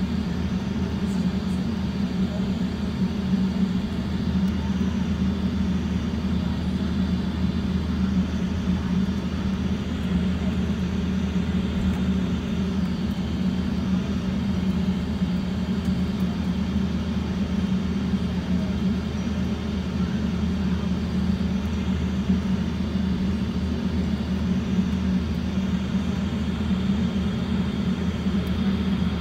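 Steady cabin noise inside a Delta Airbus A350-900 taxiing: the Rolls-Royce Trent XWB engines at taxi power and the airframe rolling make an even, low hum with a hiss above it.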